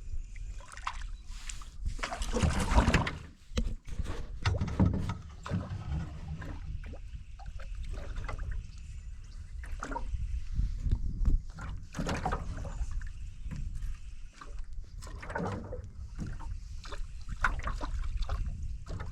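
Water sloshing against a canoe's hull, with irregular knocks and bumps of people and gear moving in the boat, and a louder rush of noise about two seconds in.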